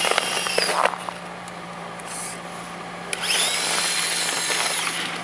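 Electric drive motor and gears of an Axial SCX10 RC crawler whining as it drives and pushes snow with a plow. The whine cuts off about a second in, then starts again a little past halfway, rising in pitch as the motor spins up.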